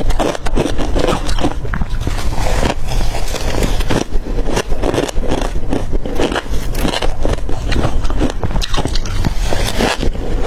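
Biting and crunching hard crushed ice close to the microphone: a dense, irregular run of crisp cracks and crackles that keeps going without a pause.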